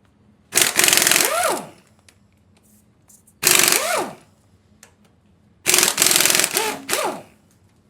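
Pneumatic impact wrench hammering cylinder head bolts loose on a 7.3 IDI diesel, in three bursts of about a second each. Each burst ends in a short rising-and-falling whine as the tool spins free and winds down.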